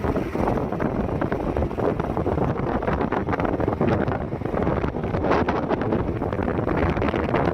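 Wind buffeting the microphone: a steady, loud rushing rumble with a fine crackle running through it.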